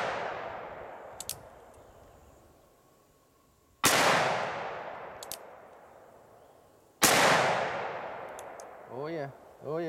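Two shots from a 7.5-inch-barrel .45 Long Colt single-action revolver, about three seconds apart. Each echoes and dies away over a few seconds, and the echo of a shot just before is still fading at the start. Faint clicks of the hammer being cocked come between the shots.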